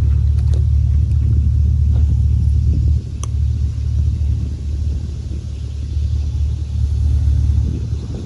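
A Bayliner's V8 inboard engine idling in gear, a steady low rumble that drops in level about three seconds in as the throttle eases off.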